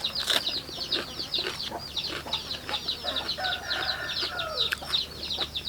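Chicks peeping continuously, a rapid stream of short high calls that fall in pitch, with a few sharp clicks of chewing mixed in.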